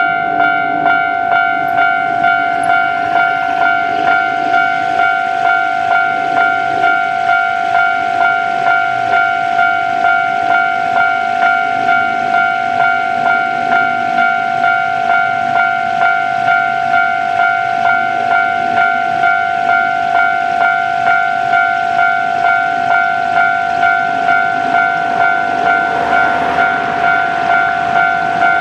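Japanese railway level-crossing warning bell on the Hankyu Senri Line ringing its electronic ding over and over, about three dings every two seconds. A train's running noise swells under it near the end.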